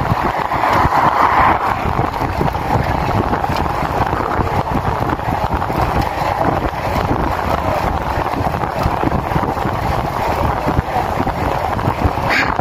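Steady wind rush buffeting the microphone of a handlebar-mounted phone on a road bike riding at speed.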